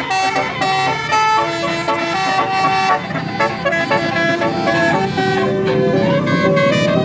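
Tour bus telolet horn: a set of multi-tone air horns sounding a quick tune of changing notes, several pitches at once.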